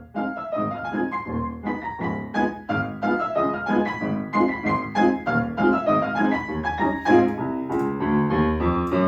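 Small mixed children's instrumental ensemble playing, with piano prominent in quick, short notes.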